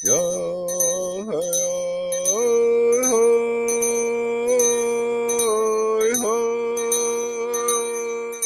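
A man singing a traditional Native American prayer song for food and water in long held vocable notes that step between a few pitches, while a handbell rings steadily about twice a second.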